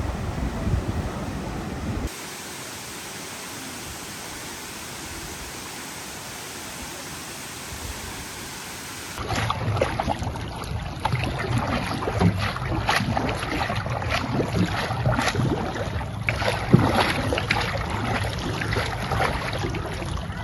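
Sea waves and wind on the microphone across several cut-together clips. In a steady quieter hiss from about 2 s to 9 s, the water sound drops. The louder last half has a low rumble with many short sharp hits.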